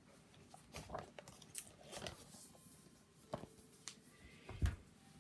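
A hardcover cookbook being handled and set down: a few faint clicks and rustles, then a soft low thump near the end.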